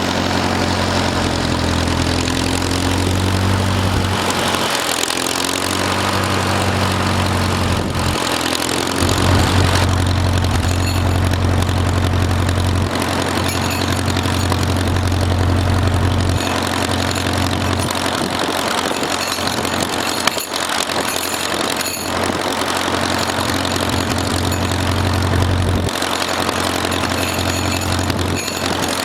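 Farmall M tractor's four-cylinder engine running at low speed. Its low note shifts several times as the engine speed or load changes, with a single sharp click about two-thirds of the way through.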